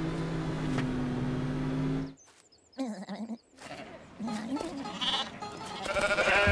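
Cartoon sheep bleating: a couple of short bleats, then a louder cluster of bleats near the end. They follow a steady low hum that cuts off abruptly about two seconds in.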